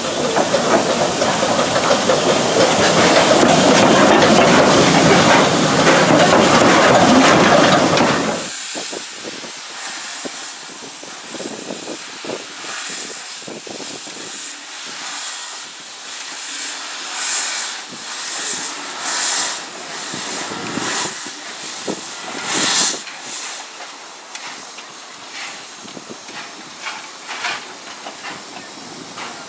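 Narrow-gauge steam locomotive NG 60 hissing steam loudly and steadily, cut off abruptly after about eight seconds. Then, quieter, the locomotive moves slowly with a series of short, sharp steam hisses, the loudest a little past two-thirds of the way through.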